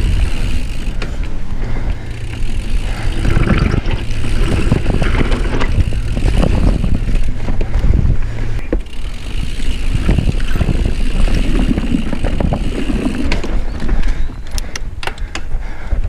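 Mountain bike rolling along a dirt singletrack, heard from a chest-mounted camera: wind buffeting the microphone over the rumble of the tyres on dirt, with rattles and sharp clicks from the bike that come more often near the end.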